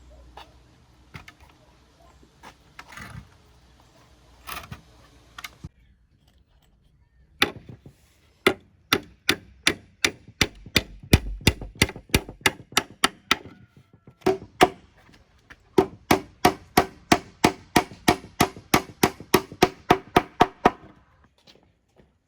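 Hammer blows on wood, about three to four strikes a second, in two runs with a short pause between, each blow with a ringing note, after a few seconds of lighter knocks and handling of timber.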